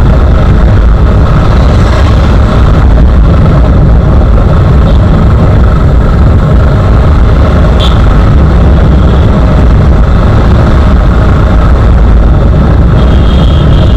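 A motorcycle riding along at steady speed, heard through an action camera on the rider: a loud, steady rush of wind on the microphone over the engine running.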